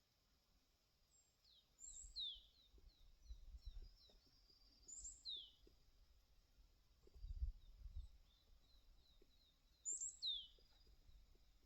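Wild birds calling faintly: three downward-sweeping high calls about 2, 5 and 10 seconds in, with runs of short high chirps between them. Low rumbles come and go underneath, the loudest about 7 seconds in.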